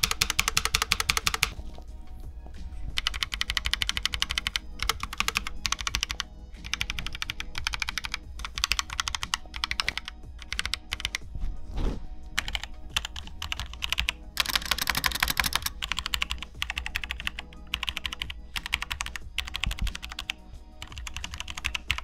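Typing on two mechanical keyboards, a dense run of key clicks. First comes the Keychron K3 with low-profile Gateron Red linear switches, then the Logitech G910 with Romer-G tactile switches. Background music plays under it.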